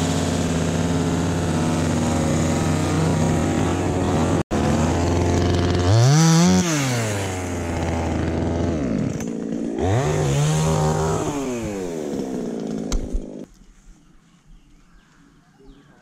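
Chainsaw idling, revved up twice and let fall back to idle each time, then switched off a little past three-quarters of the way through.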